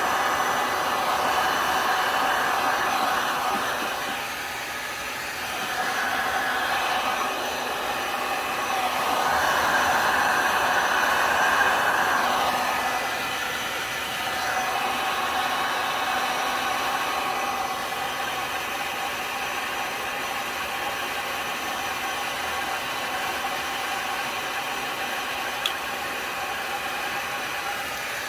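Electric hand-held air blower of the hair-dryer kind running steadily, its rushing hiss swelling and fading as it is moved about, pushing wet alcohol ink across a tumbler.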